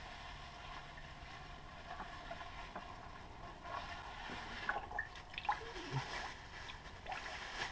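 Faint handling sounds from a hand in a thin plastic bag groping in a bucket mouse trap and pulling out the mice: light splashing, bag crinkling and a few small clicks and knocks, busiest in the second half.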